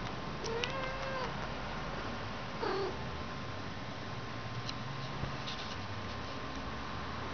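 A cat meows twice: a short cry that rises and falls about half a second in, then a louder one around two and a half seconds in that slides down in pitch.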